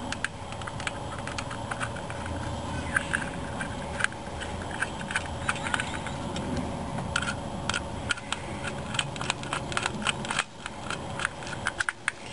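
Irregular small clicks and scrapes of a screwdriver working on a distributor and its cap as the cap is fastened, over a faint steady hum.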